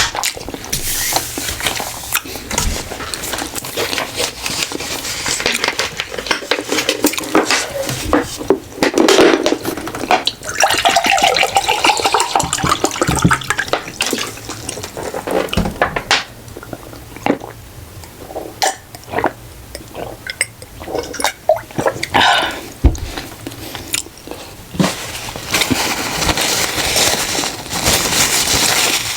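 Close-miked eating sounds: chewing and slurping food, with clicks of cutlery against dishes.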